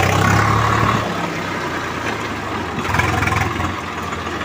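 Swaraj 744 FE tractor's three-cylinder diesel engine running as the tractor drives along, heard close up from on the tractor. It is louder for about the first second, then eases off a little.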